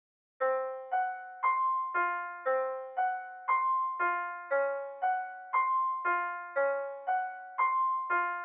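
Background music: piano notes struck about twice a second in a repeating pattern, each note ringing and fading before the next.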